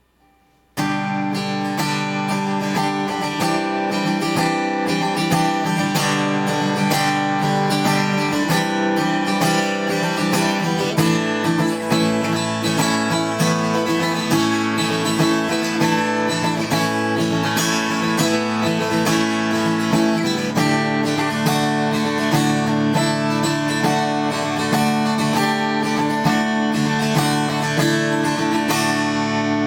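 Acoustic guitar strummed in chords, starting abruptly about a second in.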